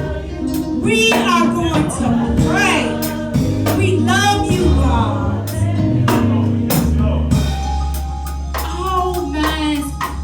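Music with singing over a drum kit and held bass notes, with regular drum hits.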